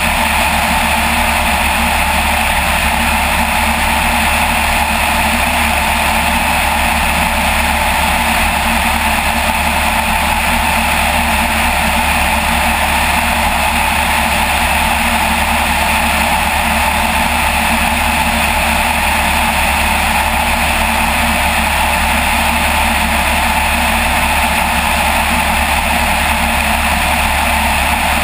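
Light aircraft's piston engine and propeller droning steadily in cruise flight.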